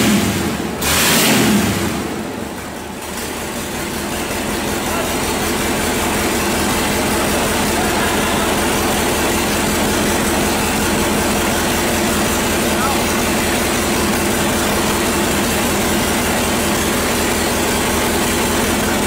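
Mercedes-Benz OM442 LA V8 turbodiesel running. There are a few loud, noisy surges in the first two seconds, then it runs steadily.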